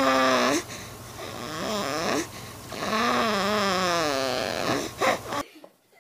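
A newborn baby makes a few drawn-out, wavering squeaks and grunts in its sleep, the longest lasting about a second and a half. The sound cuts off suddenly near the end.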